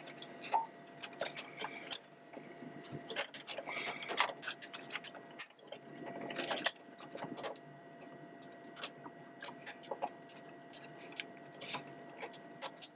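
Bundle of power-supply cables being handled inside a Dell OptiPlex 755's metal case: irregular rustling, light clicks and scrapes of wire sheathing and plastic connectors against the chassis, as the CPU power lead is worked into place.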